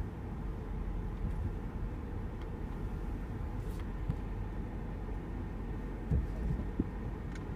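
Steady low road and engine rumble inside the cabin of a 2014 Mercedes-Benz SL550 rolling slowly, with a small knock about six seconds in.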